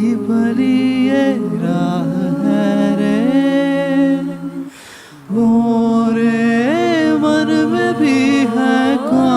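A cappella vocal group singing wordless held chords in close harmony, the voices gliding between notes; the singing drops out for about half a second near the middle and then comes back in.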